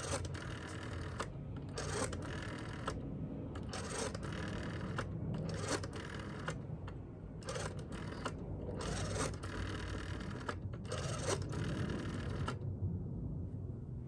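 Western Electric Model 500 rotary phone dial being wound and released for one digit after another, about seven times. Each release makes a short whirring, ticking burst as the spring-driven dial spins back and its contacts send the pulses. The dialing stops near the end.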